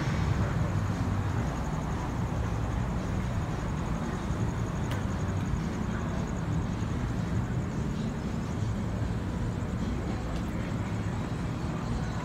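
Steady city street ambience dominated by the low rumble of road traffic, without breaks or sudden events.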